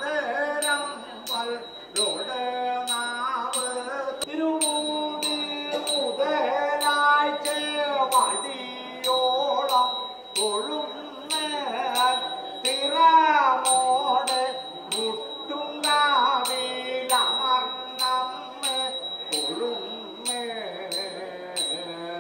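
Kalamezhuthu pattu temple song: a voice singing a long, winding devotional melody, kept in time by small metal cymbals struck about twice a second with a bright ringing.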